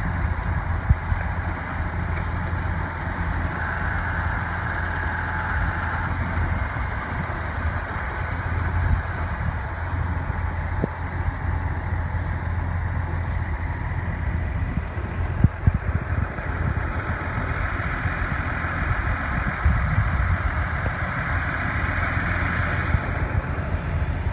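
Diesel farm machinery running steadily: a low engine hum under an even mechanical rushing noise, with a few scattered knocks.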